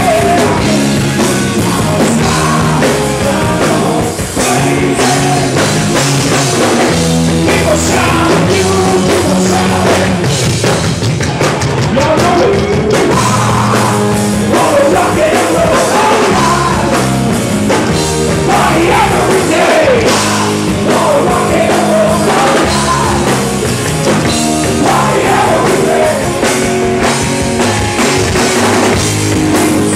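Loud live rock band playing, with a man singing into a microphone over the band.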